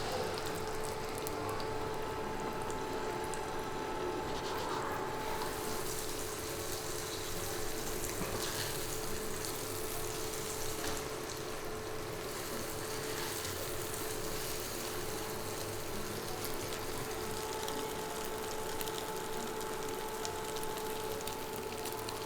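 Green beans cooking in a wok: a steady hiss with a steady hum under it.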